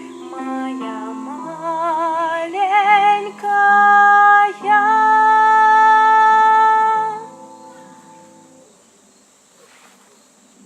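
A song ending: a singer sings the final phrase of the refrain with vibrato and holds a long last note over sustained instrumental accompaniment. The music stops about eight seconds in.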